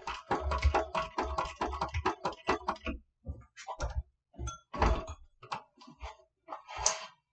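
TechSew 2750 industrial walking-foot sewing machine stitching a seam through leather and lining fabric. A fast, even run of stitches for about three seconds, then slower, spaced-out stitches.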